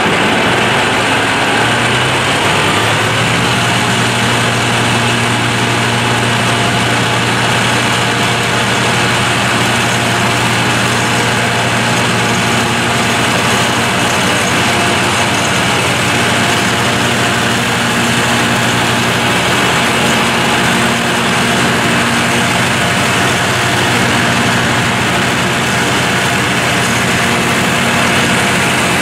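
A tractor engine runs at a steady speed, driving a Bush Hog TD1500 batwing turf mower. The engine's pitch comes up a little in the first few seconds, then holds even.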